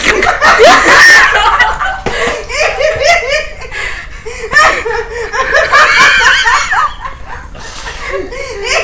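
A woman laughing uncontrollably in long fits, with others laughing along. The laughter comes in waves and eases off briefly near the end.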